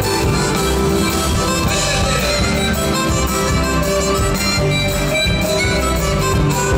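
Harmonica played into a handheld microphone cupped in both hands, leading a live band with bass in an Argentine folk tune.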